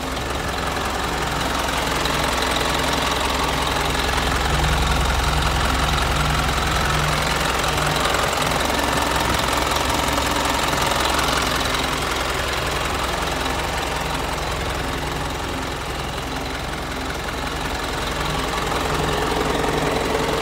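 Isuzu 4HK1 four-cylinder turbodiesel idling steadily, heard up close at the open engine bay.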